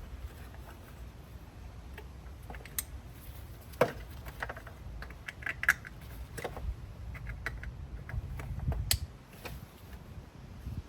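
Scattered light clicks and knocks of parts and connectors being handled and refitted in a car's engine bay, with sharper knocks about four, six and nine seconds in, over a low rumble.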